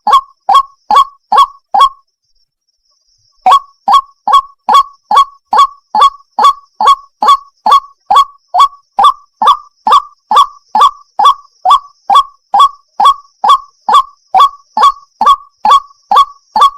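White-breasted waterhen (ruak-ruak) calling: a loud run of short, falling notes, about three a second. It breaks off for a second and a half about two seconds in, then picks up again steadily. It is the female's call to a male.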